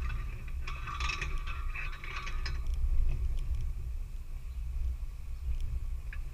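4x4 vehicle crawling over a rough off-road trail: a steady low engine and drivetrain rumble, with a burst of creaks and rattles about a second in, then scattered clicks.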